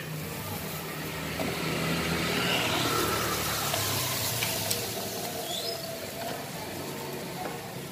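A motor vehicle engine running steadily, growing louder about a second and a half in and easing off again after about five seconds.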